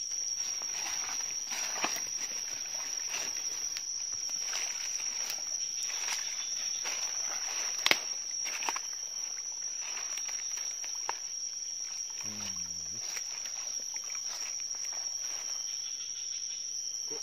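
Insects chirring in a steady, unbroken high tone, with scattered rustles and clicks of handling and a sharper knock about eight seconds in.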